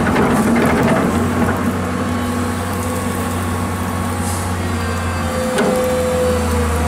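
Komatsu PC210 crawler excavator's diesel engine running steadily while its bucket works into a pile of earth, with a few knocks in the first second or so and a single knock near the end.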